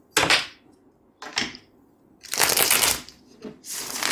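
A deck of tarot cards shuffled by hand, four short bursts of riffling with brief pauses between, the longest about halfway through.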